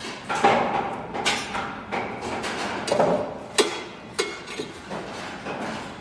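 Construction site work noise: irregular hammer blows and metallic clanks, about two a second, some ringing briefly, over a steady background din.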